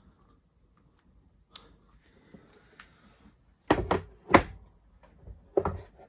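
Heavy metal milling-machine accessories being handled and set down on a bench: a few light clicks, then several heavy thuds in quick succession from about three and a half seconds in, the loudest just after four seconds, and one more near the end.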